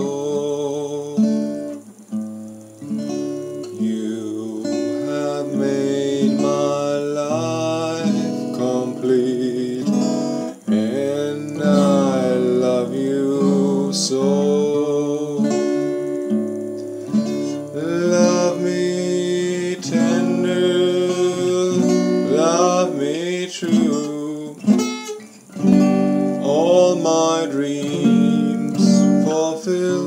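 Acoustic guitar strummed and picked in a continuous song, with a man's voice singing along at times.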